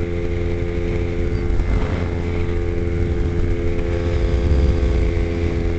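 Kawasaki Ninja 250's parallel-twin engine running at a steady pitch at freeway cruising speed, with wind rumble over the microphone.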